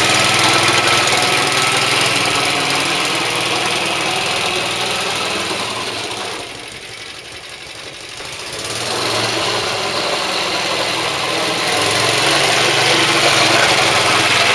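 Suffolk Iron Foundry 75G14 single-cylinder four-stroke side-valve engine of an early-1960s Suffolk Colt cylinder lawnmower, running steadily as the mower crosses the lawn. It fades about halfway through as the mower moves away, then grows louder again as it comes back close.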